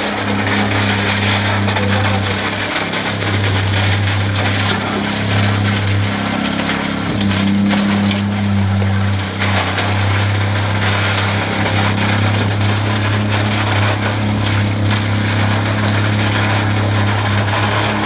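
Concrete pump's engine running with a steady low drone, while wet concrete pours from the boom's end hose and splatters onto the slab.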